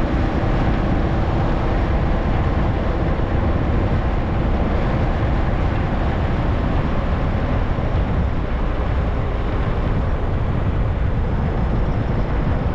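Car driving along a paved road: a steady rush of tyre and wind noise over a low rumble, with no change in pace.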